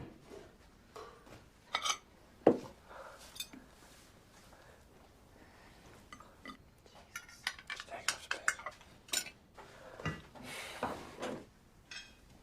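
Cutlery clinking against plates at a dinner table, with scattered light clicks and scrapes that grow busier past the middle.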